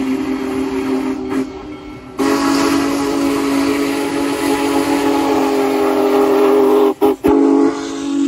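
Union Pacific 4014 Big Boy steam locomotive blowing its whistle, several notes sounding together, as it approaches. One blast ends about a second and a half in. A long blast starts about two seconds in, breaks off twice briefly near the end, and then stops.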